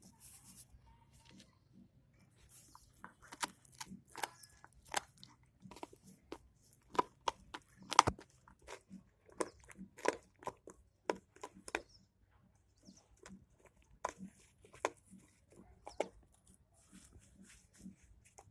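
German Shepherd puppy gnawing a hard calcium chew bone: irregular sharp crunches and cracks of teeth on bone, busiest in the middle, with the loudest crack about eight seconds in.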